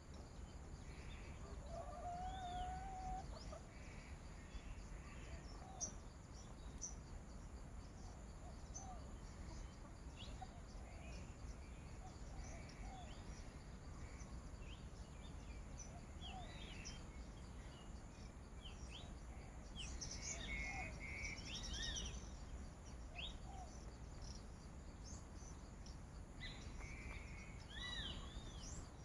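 Faint mix of wild bird calls: many short chirps and arched whistles, one call repeating about every second and a half, a brief held whistle near the start, and a busier stretch of calls about two-thirds of the way in.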